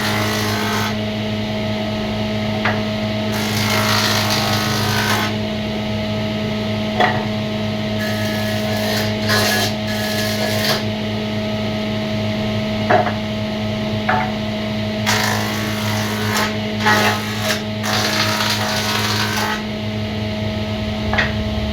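Woodworking in a workshop: spells of scraping on wood and a few sharp knocks, over a steady machine hum.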